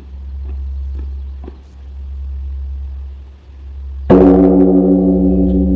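A large bronze temple instrument is struck once about four seconds in and rings on with a sustained hum of several deep tones, slowly fading. Before the strike there is only a low, swelling rumble.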